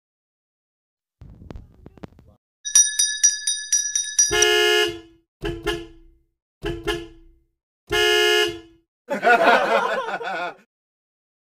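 Sound effects: a quick run of high chiming ticks, then a horn honking four times, the first and last honks longer and the middle two short, then a wavering, warbling noise.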